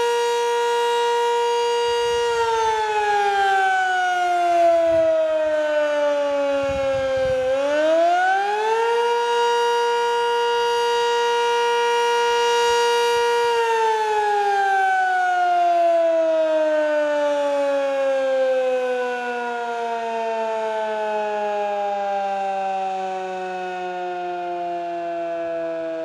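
Sentry 20V2T electromechanical outdoor warning siren sounding a steady tone that falls in pitch from about two seconds in, winds back up to full pitch around eight seconds, holds, then winds down from about fourteen seconds in a long, slow falling tone that is still going at the end.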